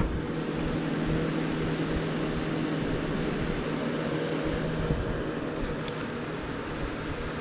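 Electric fan running with a steady hum and an even rush of air, plus a few faint ticks near the end.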